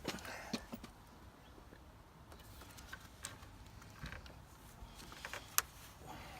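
Scattered light clicks and taps of hands working cable ties around a car's radiator fan, with one sharper click about five and a half seconds in.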